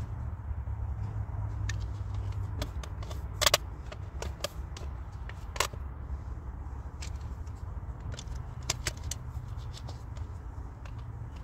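Scattered small clicks and taps of makeup containers and tools being handled close to the microphone, the sharpest a double click about three and a half seconds in, over a steady low rumble.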